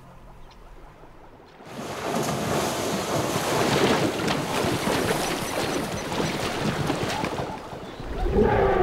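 Heavy splashing of a zebra herd galloping through shallow river water, starting suddenly about two seconds in. Near the end a short animal call with a wavering pitch sounds over the splashing.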